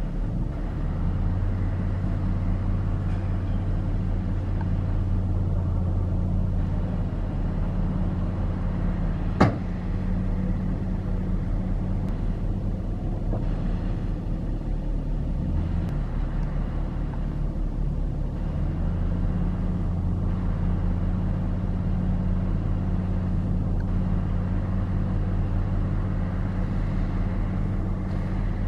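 Diesel engine of heavy construction machinery running steadily with a low hum, its note shifting for a few seconds past the middle before settling back. A single sharp knock about nine seconds in.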